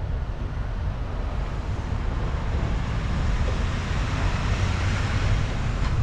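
Wind rumbling on the microphone with road-traffic tyre hiss, swelling about four to five seconds in as a car passes.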